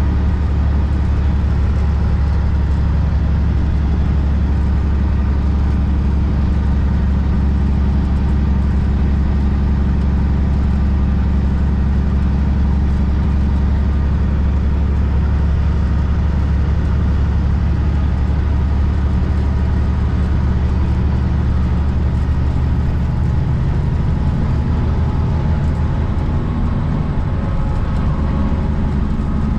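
Heavy truck driving down the road: a steady, low engine and road drone, changing slightly near the end.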